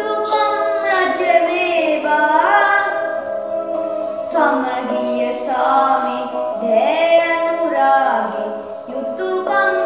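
A group of young female voices singing a slow melody together, with long held notes over a steady drone.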